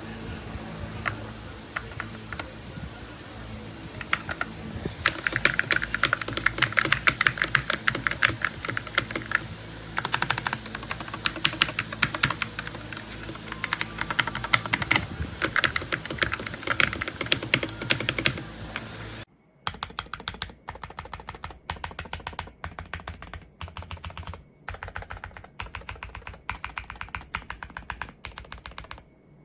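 Fast typing on a MonsGeek FUN60 magnetic-switch keyboard: a dense run of key clicks. About two-thirds of the way in, the background hum cuts off suddenly and the typing continues in shorter bursts with brief pauses.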